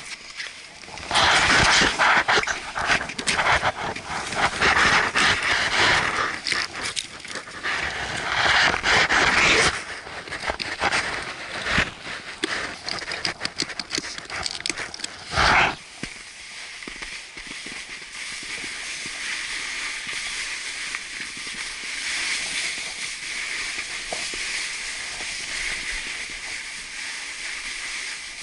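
Loud, irregular rustling and clicking of handling noise on a body-worn camera while a snowboarder straps in. About halfway through it gives way to a steady hiss as the snowboard slides down the slope.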